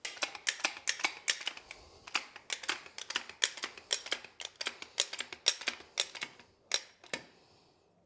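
A tubing cutter working around copper pipe: a quick, even run of light metallic clicks, about four a second, with a short pause near two seconds in. It stops a little after seven seconds in with a brief high squeak.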